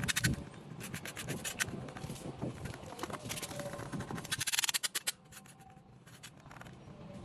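Hand-tool scraping and tapping on an old box, with scattered sharp clicks and a short burst of rapid scraping about four and a half seconds in.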